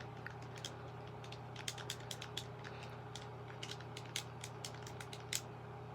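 Buttons on an AT&T telephone keypad being pressed one after another: a run of small plastic clicks at an uneven pace, about three or four a second, with no key tones.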